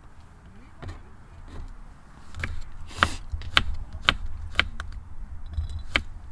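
Kitchen knife chopping garlic cloves on a wooden cutting board: sharp single knocks, a few faint ones at first, then about two a second from a couple of seconds in, over a low rumble.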